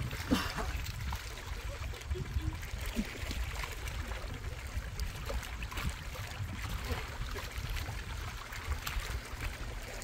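Small waves lapping and trickling against the shoreline rocks, over a steady low rumble, with scattered small clicks and splashes.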